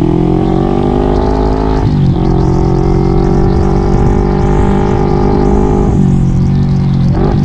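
Two-stroke Kawasaki Ninja engine in a Yamaha Mio scooter running under way. Its pitch climbs for the first two seconds, dips sharply and picks up again, holds steady, then steps down about six seconds in, with another short dip near the end.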